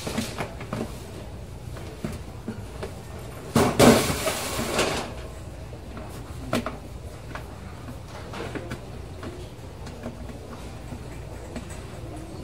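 Large plastic storage totes being pulled and shifted on a shelf: scattered plastic knocks and clatter, with one louder scraping slide about four seconds in.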